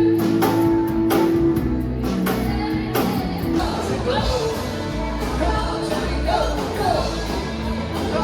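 Live 1950s-60s rock-and-roll cover band playing, with a steady drum beat about twice a second over held notes, then singing from about halfway through.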